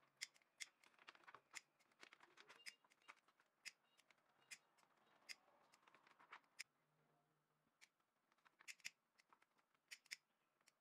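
Near silence with faint, irregular small clicks and ticks, about two a second, from a plastic bottle neck, a plastic detergent bag and a lighter being handled and pressed together.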